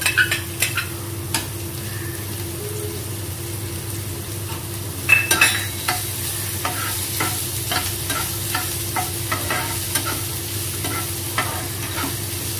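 Chopped onions frying in hot oil in a nonstick pan, with a steady sizzle and the spatula scraping and clicking against the pan as they are stirred. A louder cluster of spatula knocks comes about five seconds in.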